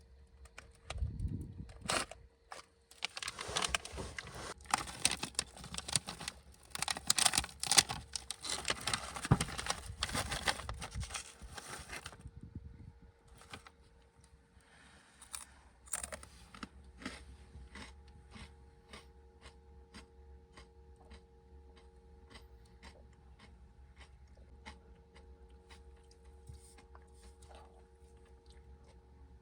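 Rustling and crinkling, as of plastic or paper being handled, for the first ten seconds or so. Then comes a run of small ticks about two a second over a faint steady hum.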